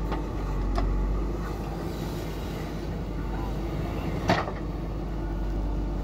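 JCB 3DX backhoe loader's diesel engine running steadily under load as the bucket works soil, with a couple of light knocks near the start and one sharp clank about four seconds in.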